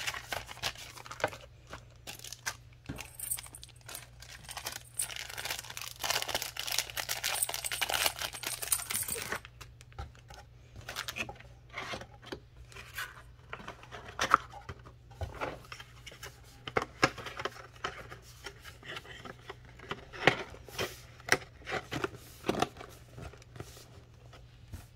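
Paper, card and a clear plastic bag being handled while unpacking a cardboard box: a dense crinkling rustle from about four to nine seconds in, then scattered taps and rustles of card being moved and folded.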